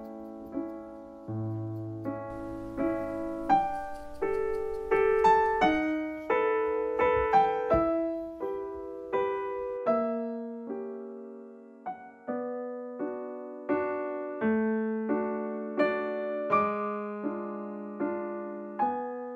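Background piano music: an even, unhurried line of notes struck one after another, each ringing out and fading.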